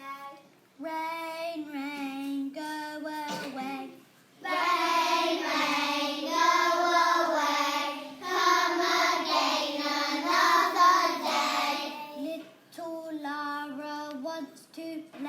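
Young schoolchildren singing a song together without words of speech between lines. The singing is quieter for the first few seconds, swells much louder and fuller from about four seconds in until about twelve seconds, then drops back to quieter singing.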